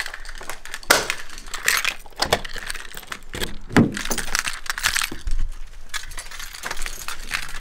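Keys jangling and clinking, with clicks from a door lock and a car's door handle, and a heavier knock about four seconds in as the car door is pulled open.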